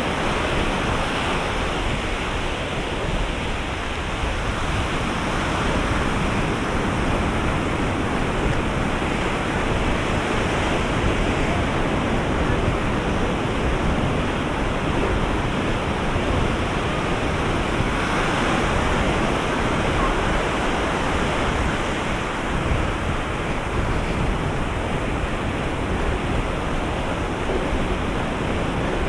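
Ocean waves breaking and washing up the beach in a steady surf, with a louder wash about two-thirds of the way through.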